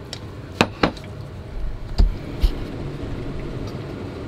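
Metal forks clinking against bowls, four short sharp clicks, with a dull low thump about two seconds in, over a steady low rumble in the background.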